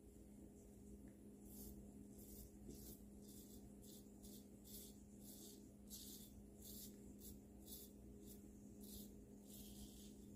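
Faint scraping of a 1954 Gillette Silver Tip safety razor cutting stubble: short strokes, about two a second, starting about a second and a half in. A steady low hum sits underneath.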